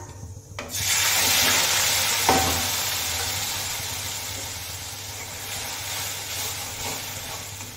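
Wet ground onion-tomato masala paste dropped into hot oil in an aluminium kadai: a loud sizzle starts just under a second in and slowly dies down as it is stirred. A single clink of the spoon against the pan about two seconds in.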